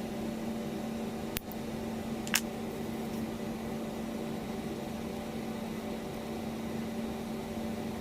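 Steady electrical hum from a running appliance, with a sharp click about a second and a half in and a short louder tick about a second later.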